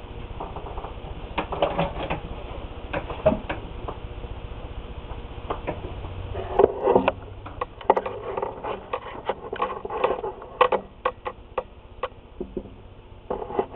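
Handling noise: irregular clicks, knocks and rustling as a handheld camera is moved about a desk, denser in the second half.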